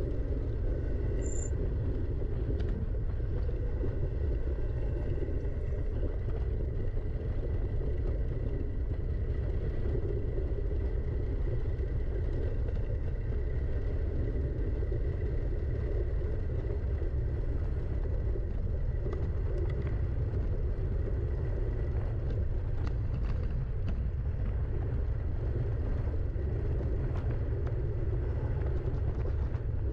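Steady low rumble of wind and rolling on the microphone of a camera carried down a trail, with a few short knocks and rattles from bumps in the second half.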